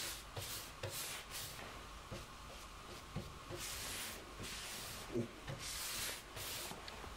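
Paintbrush bristles swishing across a cabinet's side panel as a thin coat of paint is brushed on: a few quick strokes in the first second and a half, then longer strokes around four and six seconds in. A soft knock sounds about five seconds in.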